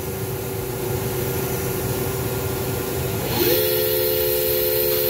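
Spindle of an EMAG VL-3 inverted CNC lathe running with a steady two-tone hum at about 500 RPM. A little over three seconds in the pitch wavers and settles slightly higher, and a thin high whine joins as the spindle drive changes speed.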